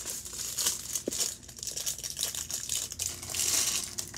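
Clear plastic packaging bag crinkling and rustling as it is handled and opened, loudest about three seconds in.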